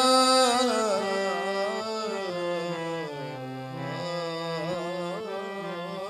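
Instrumental opening of a Punjabi devotional qasida: a wavering, ornamented melody over a steady held drone, loudest in the first second and easing slightly after.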